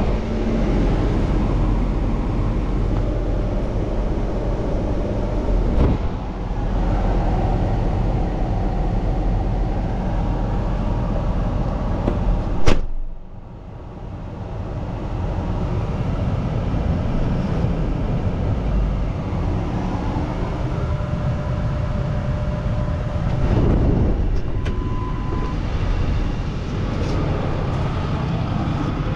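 Ford F550's turbodiesel V8 idling steadily, with a sharp knock about halfway through.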